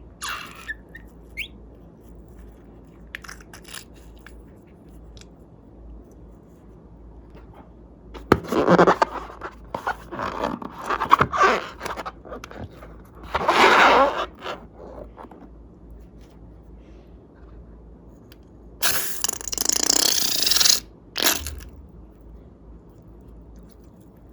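Slime-making handling noises: several loud spells of scraping and crunching, with small clicks between quiet stretches.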